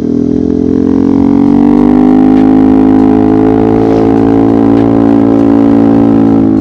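Yamaha XMAX scooter's single-cylinder engine under full throttle. The revs jump up at the start, then hold at a steady high pitch as the CVT keeps the engine at constant revs while the scooter gathers speed. The note drops away at the very end as the throttle is eased off.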